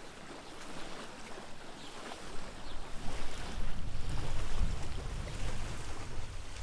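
Wind buffeting the microphone: an uneven low rumble that builds from about two seconds in, over a steady outdoor hiss.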